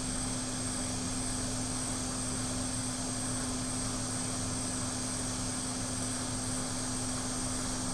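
Hot air rework station blowing steadily over a MacBook Air's SMC chip to reflow its solder balls, a constant rushing of air with a steady low hum and a faint high whine.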